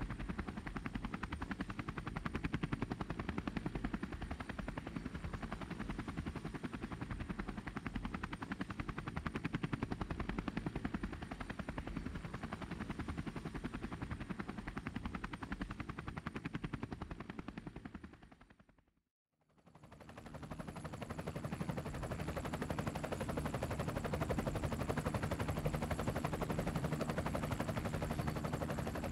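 Drone motors and propellers buzzing steadily, heard from the camera on board, a dense rapid pulsing hum with a faint high whine. About two-thirds of the way through it fades out to silence and fades back in.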